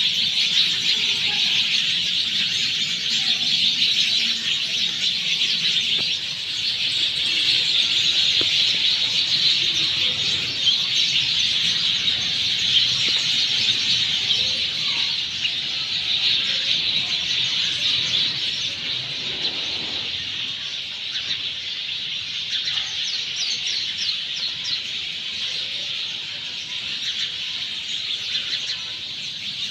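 A large flock of sparrows chattering, with many chirps overlapping in a dense, continuous din that eases slightly in the last third.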